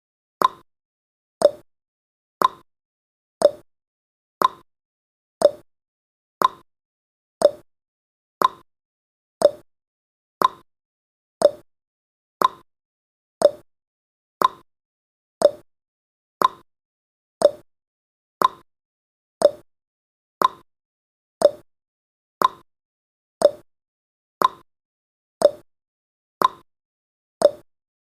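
Countdown timer's ticking sound effect: a short, sharp tick once every second, alternating between a higher and a lower pitch like a clock's tick-tock.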